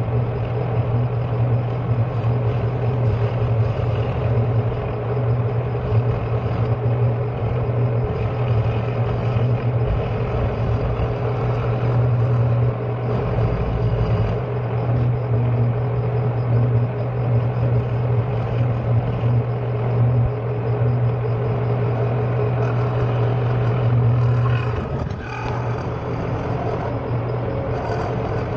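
Milling machine running with its end mill taking light cuts in a forged steel frame: a steady motor hum under the grinding noise of the cut. The sound drops a little about 25 seconds in.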